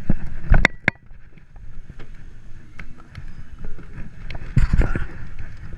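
Wind and handling rumble on a body-worn action camera while walking up to a small hatchback, with sharp knocks about half a second in and a short high beep just after. Near the end come louder knocks and rustling as the car door is opened and he climbs into the seat.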